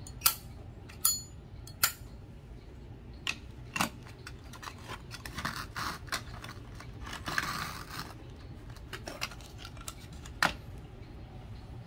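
Metal Zippo lighters being handled: several sharp clicks and clinks, with two short stretches of scraping in the middle.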